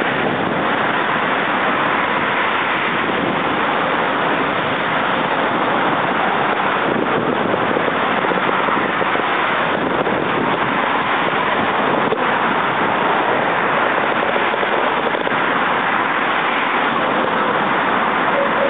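Steady noise of road traffic, cars and their tyres on the bridge roadway below, mixed with wind on the microphone.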